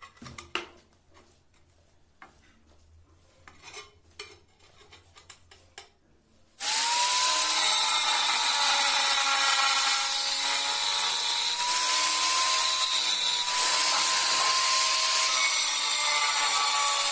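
Handheld angle grinder with a cutting disc slicing through a ceramic tile. A few faint knocks come first; the grinder starts abruptly about six and a half seconds in and cuts steadily with a high whine.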